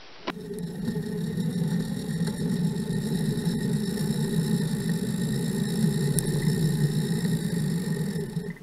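Lawn tractor engine running steadily at a constant speed.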